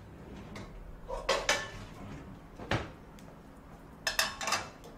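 Dishes and kitchenware being handled on a kitchen counter: a couple of clatters about a second in, a single sharp knock midway, and a quick run of clinks near the end.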